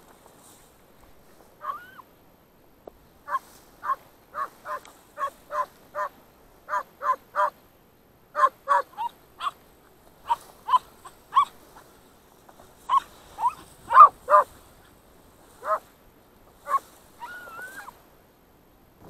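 A hunting hound barking in a long, irregular run of short yelps, about one to two a second, with a whining rise and fall in a couple of them.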